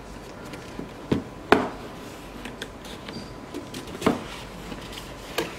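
Corrugated cardboard mailer box being folded and its flaps tucked in by hand: a few sharp knocks of cardboard, the loudest about a second and a half in, with smaller clicks between.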